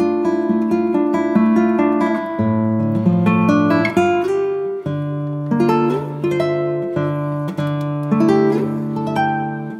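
Background music on acoustic guitar: plucked notes over held bass notes that change every second or so.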